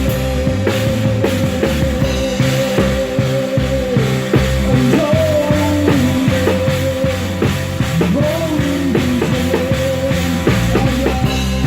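Live gospel rock band playing an instrumental passage: a guitar holds and bends a lead line over bass guitar and a drum kit keeping a steady beat.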